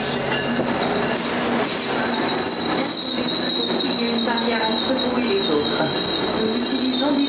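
GO Transit bi-level passenger coaches rolling past at a platform as the train pulls in to stop, with a high, steady squeal over the rolling noise of the wheels.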